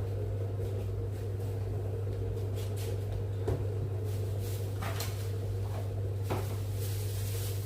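A few light knocks and clatters of things being handled, the sharpest about three and a half seconds in, over a steady low hum.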